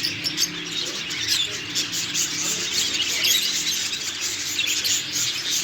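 Many small caged birds chirping and twittering at once, a dense continuous chatter of overlapping high calls, with faint voices underneath.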